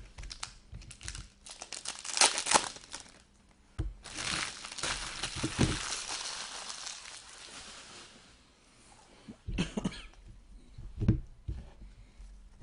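Plastic wrapping of trading card packs crinkling and tearing as it is handled and opened, with a long rustling tear in the middle and a few dull knocks of cards or packs being set down near the end.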